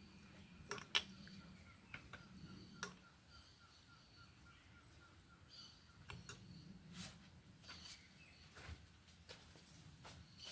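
Faint rural outdoor ambience: birds calling with thin high notes and a short run of rapid repeated chirps, under a low steady background hum. Scattered sharp clicks and taps, the loudest about a second in and near three seconds.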